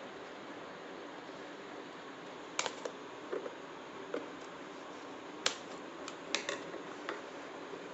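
Scattered sharp clicks and taps of a smartphone's retail box being handled and opened, over a steady faint hiss.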